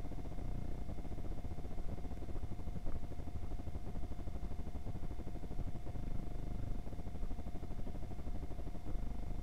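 Steady low rumble of wind and vibration on a bicycle-mounted action camera moving over a gravel road, with a faint, steady high whine.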